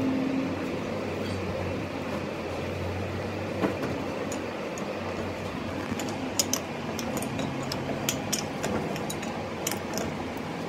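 Scattered sharp metal clicks and clinks as a pipe wrench grips and works the pitman arm nut of a Hino truck steering gearbox. Most of them come in the second half, over a steady background hum.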